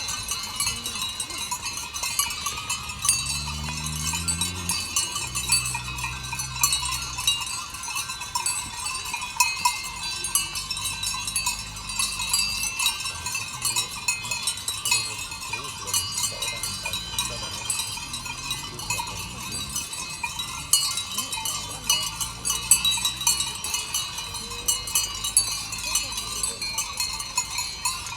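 Bells on a flock of sheep clinking continuously in a dense, overlapping jangle, with low sheep bleats now and then.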